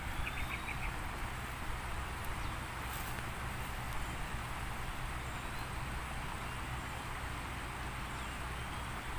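Shallow river rapids: water rushing over rocks with a steady hiss. A short run of about five quick chirps comes right at the start.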